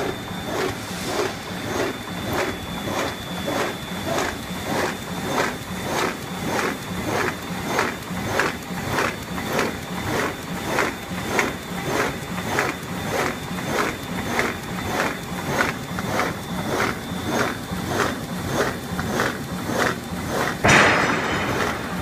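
GUR-iS PSR-900 polyethylene bag-making machine running in production, its bottom-sealing and perforating station cycling in an even rhythm of about two strokes a second, one stroke per bag. A steady high whine runs through the first part, and a brief louder rush of noise comes near the end.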